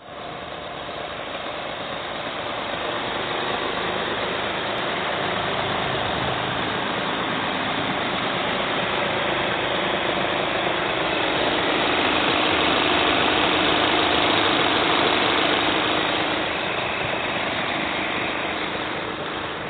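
Skoda diesel engine idling steadily, heard close up under the open bonnet, growing louder toward the middle and easing off near the end.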